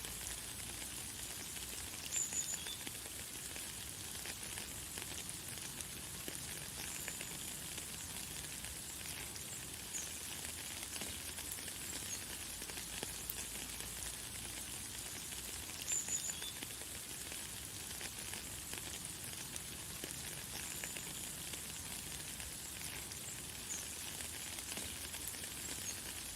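Light, fine rain falling steadily as an even hiss, with a few short high bird chirps, the clearest about two seconds in and again about sixteen seconds in.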